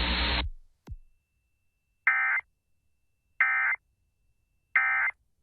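Emergency Alert System end-of-message data burst: three short, identical buzzy bursts of digital code about 1.3 seconds apart, signalling the end of the alert. A static hiss cuts off about half a second in.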